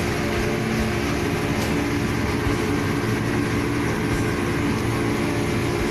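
Motorboat engine running steadily at speed, a constant hum under a broad rush of wind and water noise.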